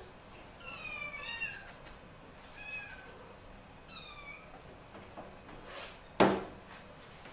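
Domestic cat meowing three times, each call falling in pitch, then a single sharp knock about six seconds in.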